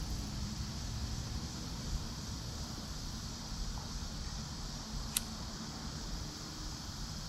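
Wind blowing on the microphone, a steady rumble and hiss, with one sharp click about five seconds in.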